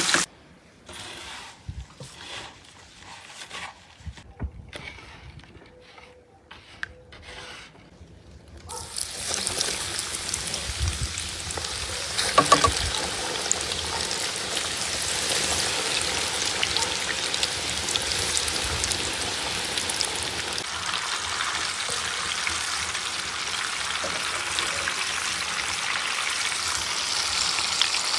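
Breaded meat cutlets frying in hot oil in a deep fryer. After a quieter stretch of short, separate sounds, a steady sizzling hiss sets in about nine seconds in and keeps going, with a sharp sudden sound a few seconds later.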